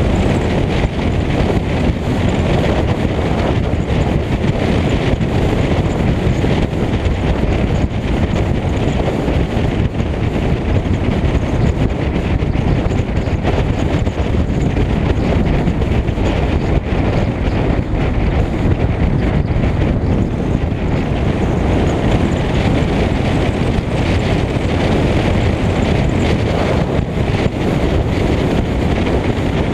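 Steady wind rush buffeting the microphone of a camera mounted on the outside of a moving car, mixed with tyre and road noise at cruising speed.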